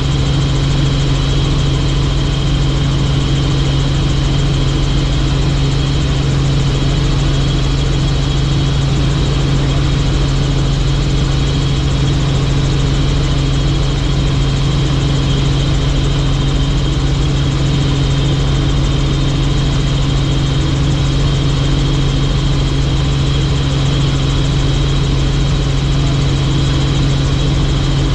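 Helicopter in flight: the steady drone of its rotor and turbine, unchanging throughout.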